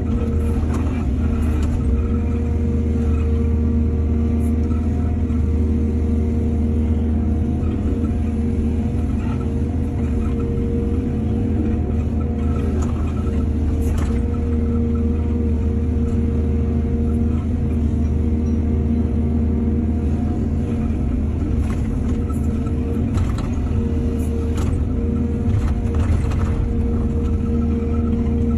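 Excavator's diesel engine running steadily at a constant pitch, with a few faint knocks and clatters here and there.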